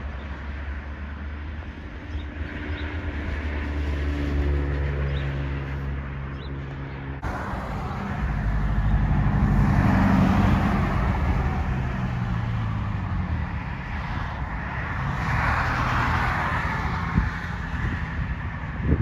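Motor vehicle engine running, its pitch stepping up over the first few seconds. After a sudden cut about seven seconds in comes a low rumble with two passing swells of traffic noise.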